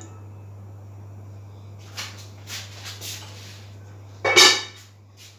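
Aluminium cooking pot and its lid being handled: a few short metal scrapes, then one louder scrape or clatter about four and a half seconds in, over a steady low hum.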